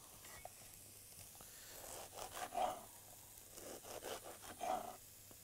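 Knife sawing through a crusty baguette on a wooden cutting board: faint rasping strokes, heaviest about two seconds in and again near the end.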